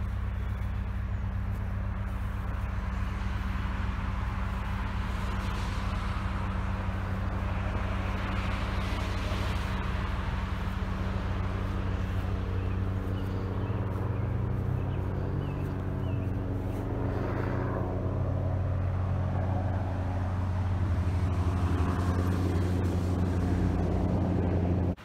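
A steady low engine drone, like a motor vehicle running at a constant speed, growing a little louder about twenty seconds in.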